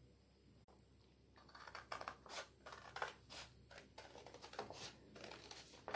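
Scissors snipping through folded paper, a quiet run of short cuts about two or three a second, starting about a second and a half in. The blades are cutting parallel slits along ruled lines in the folded sheet.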